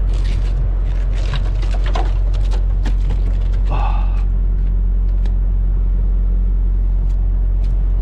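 Hand squeegee scraping slush and ice off a truck's windshield: a run of short scrapes and taps in the first three seconds and another scrape near four seconds in. A steady low rumble runs underneath.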